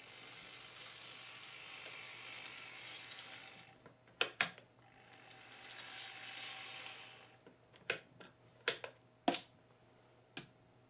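N-gauge model railcar running along sectional track with a light whirring hiss, in two runs, each followed by sharp clicks of electric turnout machines being thrown: a pair about four seconds in, then four more spread over the last three seconds.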